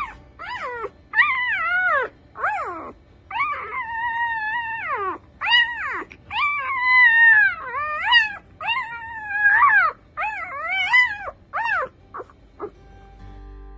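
Newborn puppy crying: a string of about a dozen high, wavering squeals, each rising and then falling in pitch, with short gaps between them.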